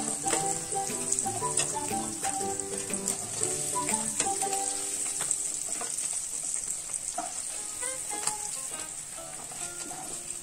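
Paneer cubes frying in bubbling oil in a pan, a steady sizzle, with clicks and scrapes from a metal slotted spatula stirring them. A tune of held notes plays underneath.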